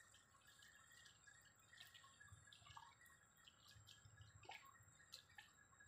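Near silence: faint, irregularly spaced ticks over a faint, steady high-pitched hum.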